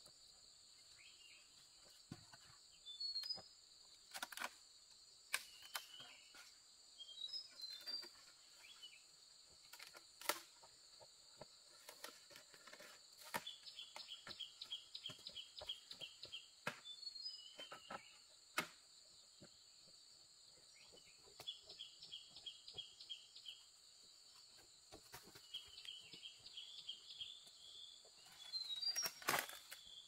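Steady high-pitched insect drone with birds chirping, some notes in quick even trains of about eight a second. Scattered sharp knocks or taps, the loudest about four, five, ten and eighteen seconds in and just before the end.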